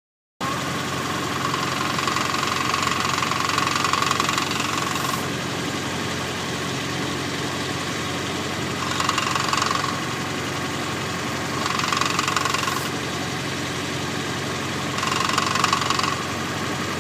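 Ford GPW Jeep's Willys Go-Devil four-cylinder flathead engine idling, with a higher whirring noise that comes in four times: first for about five seconds, then three times for about a second each. This is the clutch noise that appears when the clutch pedal is pushed down, although the clutch works; it comes from a clutch with a new disc and new throwout bearing.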